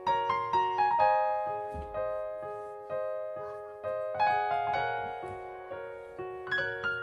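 Background piano music: a gentle melody of single struck notes, each dying away, with short runs of quicker notes.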